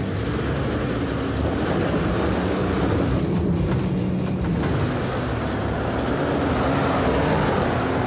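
4WD ute engine pulling under load up a steep rocky track with the electric rear locker engaged, the revs drifting slightly up and down over the noise of the tyres and drivetrain.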